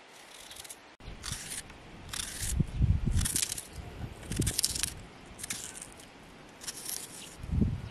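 Small knife slicing through a raw onion held in the hand, a series of crisp crunches about one a second, with some dull low thumps between them.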